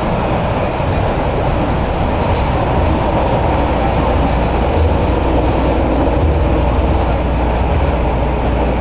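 Toei Oedo Line linear-motor subway train running through the tunnel, heard from inside the car: a steady, loud rumble and rush of wheels on rail and air.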